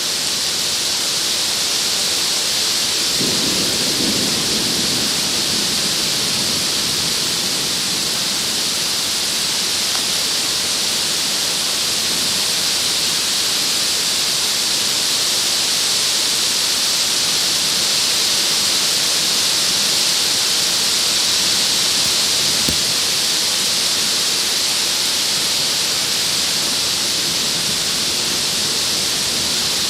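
Torrential rain pouring down in a steady, dense hiss, with drops hitting a plastic covering right over the microphone. A low rumble of thunder comes about three seconds in.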